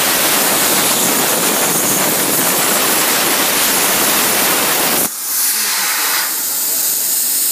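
CNC plasma torch cutting 1/4-inch mild steel: a loud, steady, rough hiss that cuts off suddenly about five seconds in as the arc goes out, leaving a thinner, higher hiss of air still blowing through the torch.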